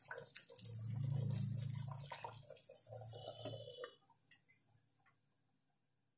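Thick besan kadhi bubbling and plopping at the boil in a steel pan, with a low hum under it. A glass lid goes on about three to four seconds in, and the sound cuts off soon after.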